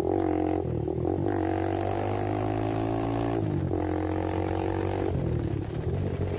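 Motorcycle running under way through its aftermarket chrome exhaust, a steady engine note whose pitch sinks slowly. It breaks off briefly about three and a half seconds in, picks up again, and turns rougher after about five seconds.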